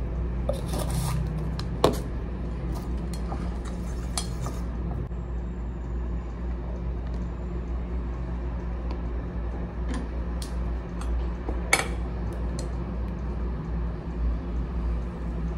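A metal spoon clinking and scraping on a ceramic plate and on the cups while cake batter is spooned into silicone cupcake cups. There are scattered sharp taps, the loudest about two seconds in and again near twelve seconds, over a steady low hum.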